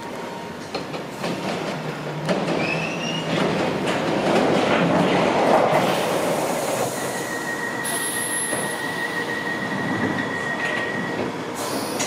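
London Underground Piccadilly Line 1973-stock train running through the junction's points and crossings. Its wheels click over the rail joints at first and grow louder as it passes close by. From about seven seconds in, a steady high-pitched wheel squeal sounds for several seconds.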